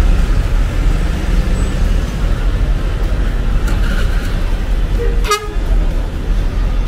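Mercedes-Benz coach's engine running with a heavy low rumble as the bus pulls away, and a short horn toot about five seconds in.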